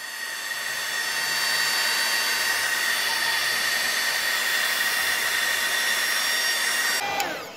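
Heat gun blowing hot air to shrink heat-shrink tubing over a soldered joint: a steady rush of air with a high motor whine. It is switched off about seven seconds in, and the whine falls away as the fan spins down.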